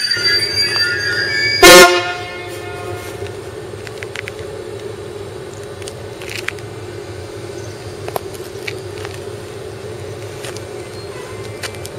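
Train wheels squealing with high steady tones, cut off by one short, very loud train horn blast about two seconds in. After it, a Renfe electric locomotive's steady hum, with a few faint clicks.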